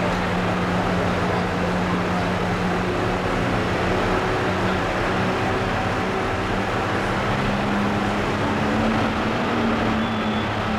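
Cummins diesel engine of a first-generation Dodge Ram pulling truck idling steadily while hooked to the sled. Its pitch creeps up slightly near the end as the truck eases forward against the chain.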